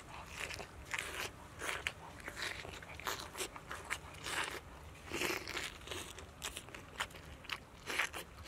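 Close-up biting and chewing of a raw lettuce-leaf wrap filled with red onion, tomato and small fish: crisp, irregular crunches, a couple a second.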